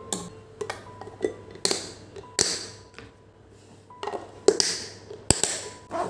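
A series of sharp clicks and knocks, about eight in six seconds, from glass food containers being lidded and packed into a lunch bag, with the loudest knocks about two and a half seconds in and near the end.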